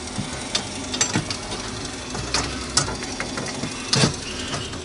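Steel rotisserie spit in a stainless steel smoker clicking and knocking irregularly, about half a dozen times, in the drive socket of its small electric motor, over a low steady hum. The spit's tip is filed unevenly, so it sits loosely in the socket.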